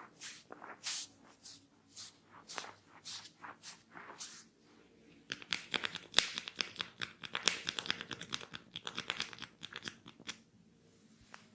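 Hair cracking on long hair: hands rubbing and tugging strands of hair, first as soft separate strokes about two a second, then about five seconds in a burst of rapid crackling lasting about five seconds.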